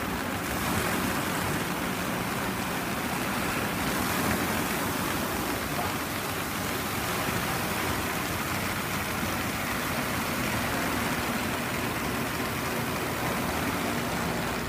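Flex Top Bottom 600-4U brush sanding machine running, its rotating top and bottom abrasive brush drums working boards as they feed through: a steady rushing noise that grows a little brighter in the hiss about four seconds in.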